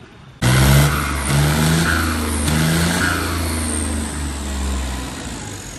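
John Deere tractor's turbocharged diesel engine revved hard. It cuts in suddenly about half a second in and pulses a few times. A high, thin turbo whistle then falls in pitch as the revs come down near the end.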